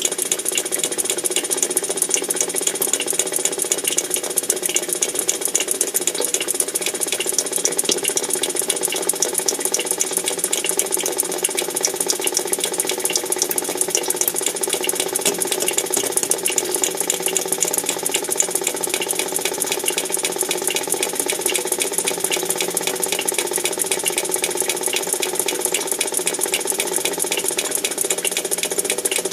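Continuous rapid mechanical rattling over a steady machine hum, unchanging throughout, which the uploader takes for underground tunnel-digging work.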